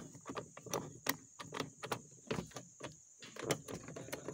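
Screwdriver driving a screw into the plastic door-handle recess of a car's door trim panel: irregular small clicks and scrapes as the screw is turned in.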